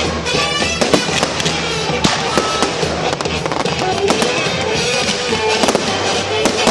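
Fireworks going off in quick succession, many sharp bangs and crackles, with music playing loudly at the same time.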